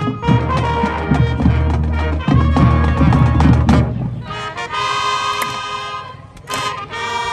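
High school marching band playing: brass over drum strikes, the drums stopping about four seconds in and leaving long held brass chords, with a short break before one more held chord near the end.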